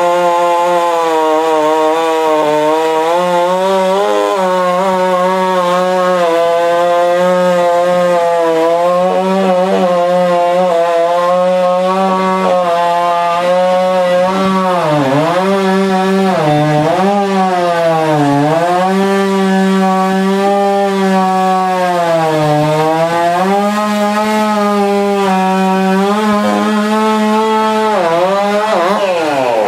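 Two-stroke chainsaw running at full throttle, cutting wood. Its engine note sags and picks back up several times midway, as the chain loads in the cut, then falls away near the end as the throttle is released.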